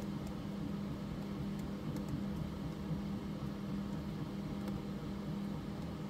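Steady low hum of a running fan, with a constant low tone and a few very faint ticks over it.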